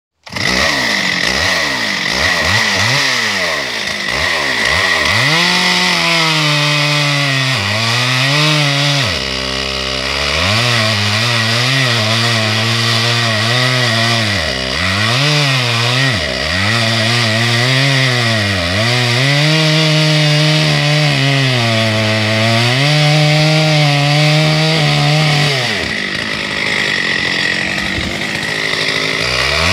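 Two-stroke Stihl chainsaw with a long bar running at full throttle while cutting into a large log. Its pitch sags again and again as the chain bogs in the wood, then recovers. Near the end it briefly runs out of the cut.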